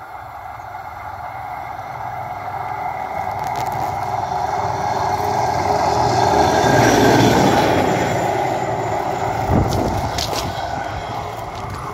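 Hi-rail ute running along the railway track: a steady running noise that grows louder as it approaches, peaks as it passes about seven seconds in, then fades as it goes away. A thump and a few sharp clicks come just after it passes.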